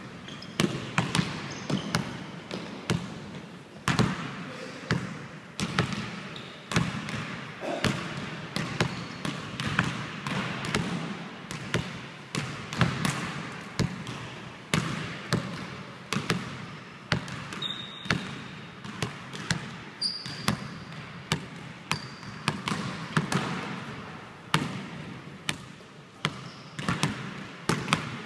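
A basketball bouncing on a hardwood gym floor, dribbled and caught in an irregular run of sharp thuds, one to three a second, each echoing in the large hall. A few short high squeaks of sneakers on the wood come in the second half.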